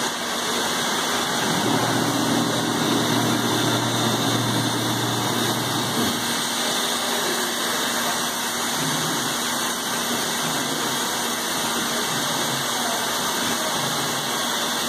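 MultiCam CNC router running, with a steady rushing from its spindle and dust-extraction hose. A low motor hum comes in about two seconds in, stops around six seconds, then returns in short spurts near the end.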